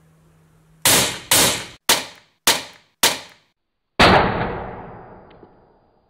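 Five sharp bangs about half a second apart, then after a pause a sixth, loudest bang that rings out for nearly two seconds: the pyrotechnic charge of a car seatbelt pretensioner firing.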